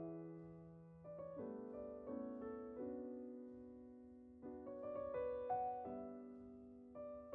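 Background music: a soft piano melody over held chords.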